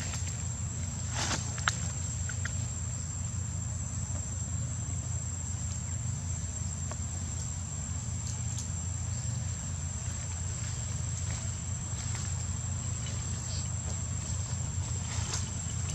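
Insects trilling steadily at one high pitch over a steady low rumble, with a few soft clicks and one sharp click a couple of seconds in.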